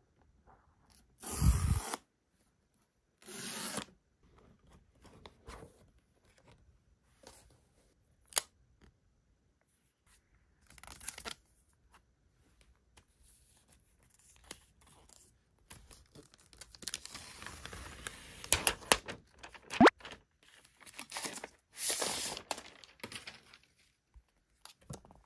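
Paper seal strips on an iPad Pro box torn off twice in the first few seconds. This is followed by cardboard and paper packaging rustling and scraping, with a run of sharp clicks near the end, as the box is opened and the tablet taken out.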